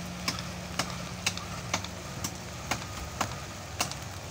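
Steady low hum of the stopped train's diesel engine idling, with a sharp tick about twice a second over it.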